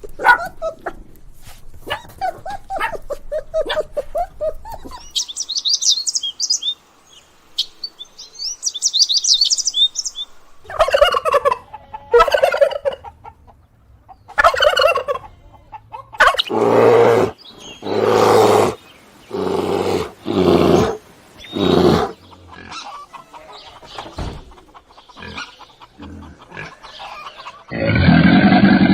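Poultry calling in a sequence of short animal-sound clips: short calls at first, then high rapid chirps, then a run of loud repeated calls. A loud deep call starts near the end.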